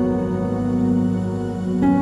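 Background music: slow, sustained new-age style chords, changing to a new chord near the end.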